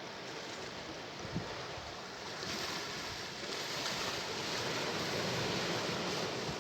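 Sea waves washing on the shore, a steady surf hiss that swells louder as a wave breaks about halfway through. A brief low thump comes just over a second in.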